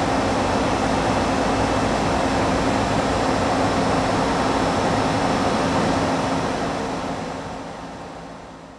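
Okuma & Howa Millac 4VA CNC vertical machining center running its demonstration program: a steady mechanical whir with a low hum, fading out over the last few seconds.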